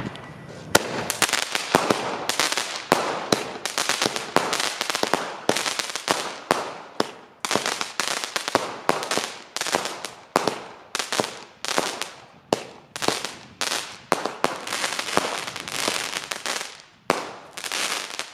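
Fireworks going off in a rapid run of bangs, about two to three a second, each trailing off briefly, then stopping shortly before the end.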